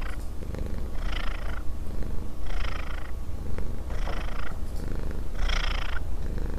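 Domestic cat purring close up: a steady low rumble that swells with each breath, about every one and a half seconds.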